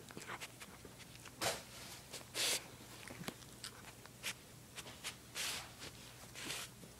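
Dachshund nosing and chewing at a stuffed dog toy to get at a treat inside: about five short scuffling bursts, the loudest about two and a half seconds in.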